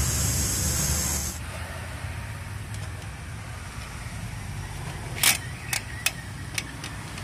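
A loud steady hiss over a low rumble for the first second and a half. About five seconds in, a screwdriver knocks against the steel brake shoes and springs of a drum brake: one sharp metal click, then four lighter clicks.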